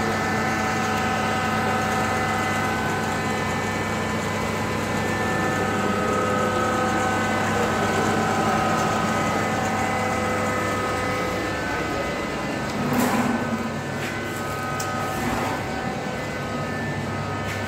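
Electric airless spray machine for wall putty running, its motor and piston pump giving a steady hum with several held tones. A few short knocks come about thirteen seconds in.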